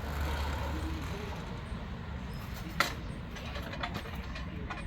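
Manual bead breaker of a motorcycle tire changer working the bead loose on a soft rear tire: a low steady rumble with one sharp clack a little under three seconds in and a few lighter knocks after it.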